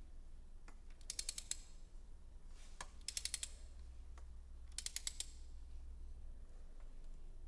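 Ratchet of a torque wrench clicking in three short runs of quick clicks, about two seconds apart, while the camshaft adjuster bolts on a Mercedes M156 V8 are tightened to 115 N·m.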